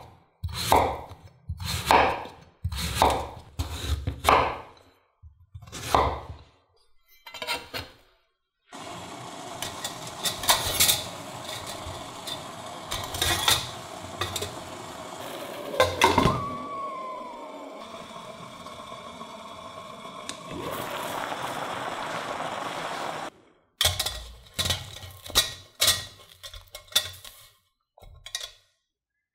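Chef's knife slicing a sweet potato on a wooden cutting board, one sharp chop about every second. Then a steady hiss with metal clinks as slices go into a stainless steel steamer basket, one of them ringing briefly with a falling tone. Near the end come quick taps and clinks as the steamed slices are lifted out of the basket.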